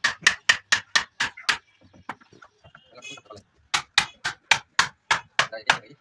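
Hammer blows in quick succession, about four a second, in two runs with a pause of about two seconds between them.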